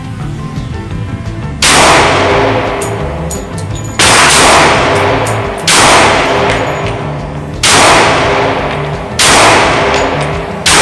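Glock G30S .45 ACP pistol fired in slow, deliberate shots, five of them about two seconds apart with a sixth right at the end. Each shot booms and rings on in the echo of an indoor range, over background music.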